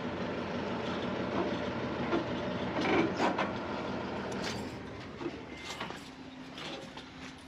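Truck engine running at low revs as the ute creeps back under the slide-on camper. It drops away about five seconds in, followed by a few knocks and clicks as the driver's door opens.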